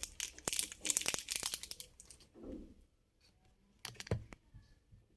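Small plastic packet of hard-drive screws crinkling and rustling as it is handled, dense for about two seconds, then a few light clicks about four seconds in.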